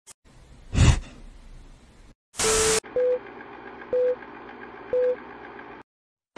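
Film-countdown transition sound effect: a swoosh about a second in, a short loud burst with a beep, then three short beeps a second apart over a steady hiss.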